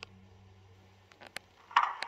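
Sound decoder of a Roco model BR 218 diesel locomotive playing its preheater (Vorwärmer) sound through the model's loudspeaker. Over a faint low hum, a few sharp clicks come just past a second in, then near the end a sudden burst turns into a steady rushing noise like a burner firing up.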